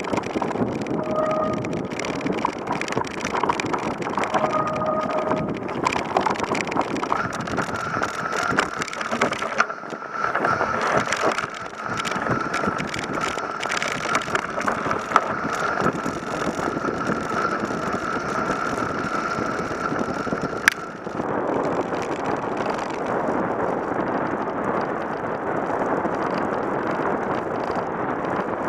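Ride noise from an electric mountain bike ploughing through snow on plus-size tyres: the bike rattles and knocks over the trail under wind on the microphone. A steady high whine runs through the middle stretch, and a sharp click about two-thirds through is followed by a smoother rushing sound.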